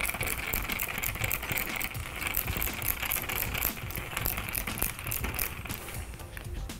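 Small precision screwdriver turning a screw into a 3D-printed ABS plastic case, making quick, irregular rattling clicks.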